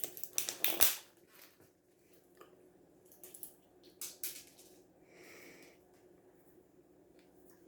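A pet crunching and cracking a walnut: a quick cluster of sharp crunches in the first second, then a few fainter crunches and clicks.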